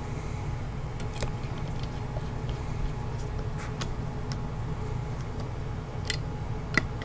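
Small scattered clicks and taps of a red dot sight and a screwdriver against the Glock 45 MOS slide's optic cover plate as the sight is seated and screwed down, the sharpest near the end, over a steady low hum.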